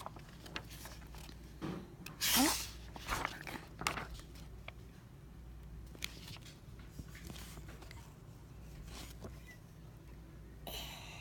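Soft rustling and small clicks of a paper picture book being handled and its page turned, with a short voice sound about two seconds in.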